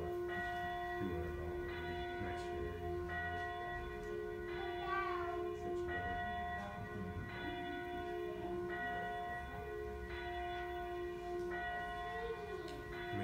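Church bell tolling steadily, about one stroke every second and a half, each stroke's ringing tones hanging on into the next.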